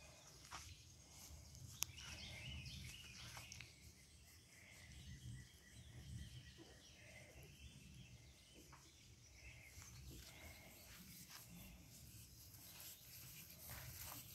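Near silence: faint outdoor background noise, with one sharp click about two seconds in.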